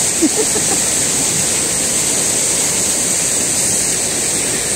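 A river's water flowing, a steady rushing noise. There is a brief, short pitched sound near the start.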